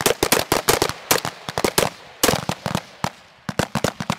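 Rapid, irregular rifle fire from several rifles at once on a firing line, among them the HK G36 assault rifle, a 5.56 mm gun, many sharp cracks a second, with a short lull about three seconds in.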